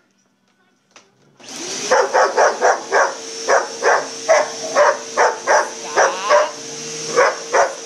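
A vacuum cleaner switches on about a second and a half in and runs steadily, and a dog barks at it over and over, about three barks a second, showing its dislike of the machine.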